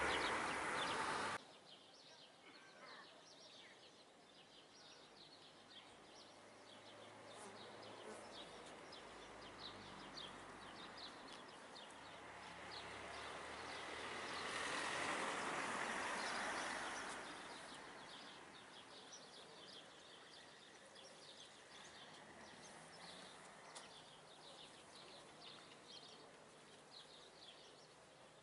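Quiet outdoor ambience with small birds chirping in quick, repeated high notes. A louder sound cuts off about a second in, and a broad rush of noise swells and fades midway.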